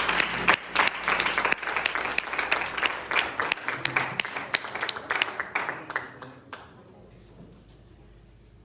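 Congregation applauding, a dense patter of many hands clapping that thins out and fades away about two-thirds of the way through, leaving quiet room sound.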